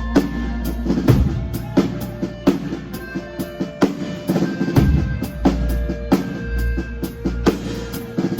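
Live band playing an instrumental passage: a drum kit keeps a steady beat with a hit about every three quarters of a second, over a steady bass line and held instrument notes.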